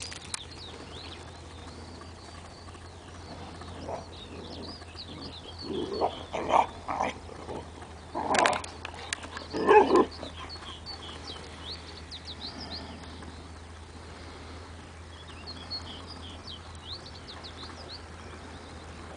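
Hungarian vizslas growling and barking in a run of short bursts from about four to ten seconds in, as they wrestle. Birds chirp in the background.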